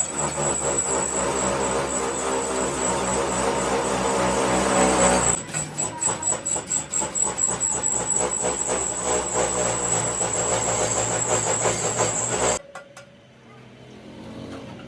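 Dump truck engine running: a dense, steady noise for about five seconds, then a fast, uneven knocking pulse, cutting off suddenly near the end to a much quieter background.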